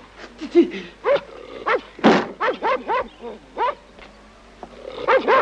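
A dog barking and yapping in a rapid run of short, sharp barks, several a second. The loudest, harshest bark comes about two seconds in.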